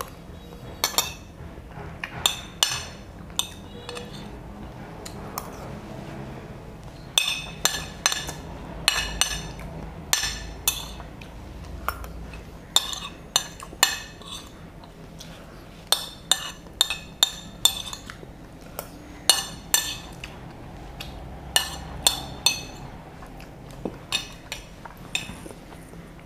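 Spoon clinking and scraping against a plate while rice is scooped up and eaten, in many sharp, irregular clinks.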